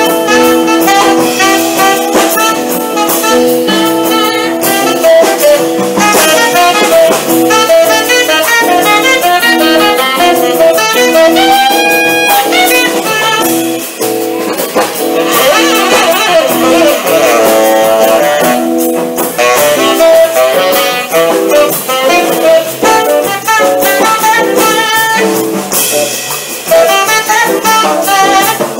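A small jazz combo playing live: saxophone carrying the melody over electric guitar and upright bass, amplified through stage speakers.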